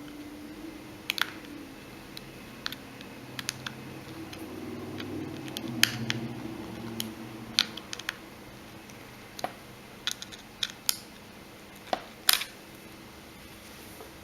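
Scattered light clicks and taps of a small screwdriver and plastic phone parts being handled, irregularly spaced, while screws are driven back into a Samsung Galaxy Nexus i9250's frame during reassembly.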